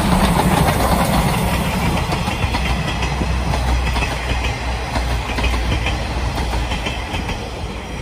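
Steam locomotive C58 239 passing close by under steam, followed by its passenger coaches rolling by on the rails; the sound is loudest as the locomotive passes and fades near the end as the train draws away.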